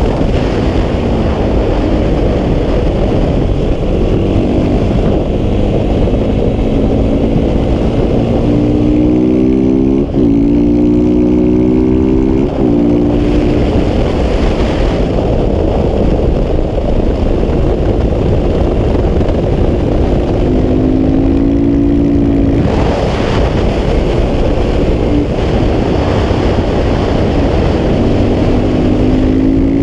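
Single-cylinder engine of a KTM 690 SMC R supermoto with an aftermarket Wings exhaust, revving up through the gears. The pitch climbs repeatedly and drops sharply at each quick upshift, a few times over, over a steady rush of wind.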